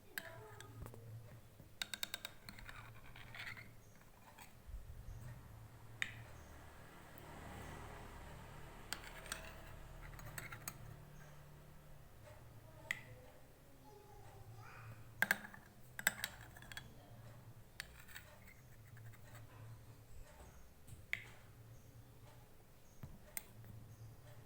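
Faint, irregular small clicks and taps, a utensil knocking against a glass as lime seeds are picked out of a honey and lime mixture, over a low steady hum.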